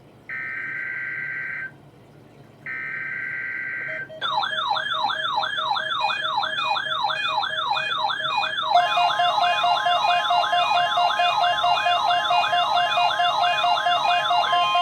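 Emergency Alert System test tones on NOAA Weather Radio. First come two short, buzzy digital header bursts, each just over a second long, separated by brief gaps. From about four seconds in, a fast-warbling, siren-like alert tone follows, cycling about four times a second. About halfway through, a steady tone joins the warble.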